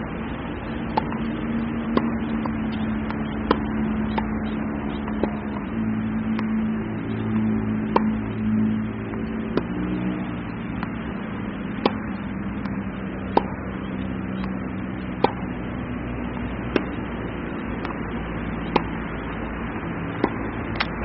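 Tennis balls struck with a racket in forehand practice: about a dozen sharp pops, one every one to two seconds, over a steady low hum.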